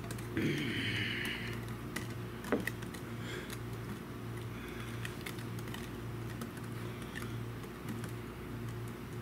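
Wire whisk beating pumpkin pie filling in a glass mixing bowl, with irregular light clicks and ticks as the wires hit the glass. A steady low hum runs underneath.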